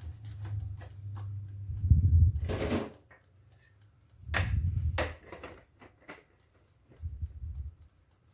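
Kitchen handling clatter as banana-leaf-wrapped fish parcels are set into a steamer: a run of light clicks and knocks with two louder clatters, about two and a half and five seconds in.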